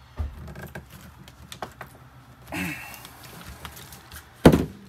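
Small clicks and rattles of hand tools as stripped wire ends are pushed into a butt connector and crimped, with one sharp, loud knock near the end. A short grunt-like voice sound comes about halfway through.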